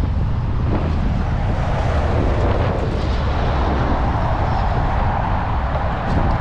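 Strong wind buffeting the microphone: a heavy, steady low rumble with a broad rush over it.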